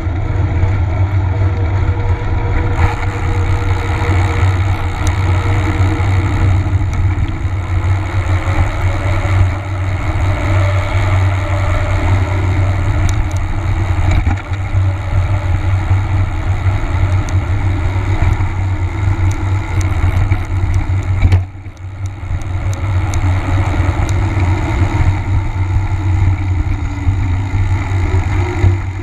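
Wind and road rumble on a bicycle-mounted camera's microphone as the bike rolls along a paved road: a loud, steady rumble that drops away for a moment about three-quarters of the way through.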